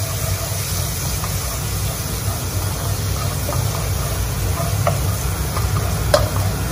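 Garlic, chilies and curry leaves sizzling in melted butter in a wok while a spatula stirs them, scraping the pan with a few light taps, the clearest near the end, over a steady low rumble.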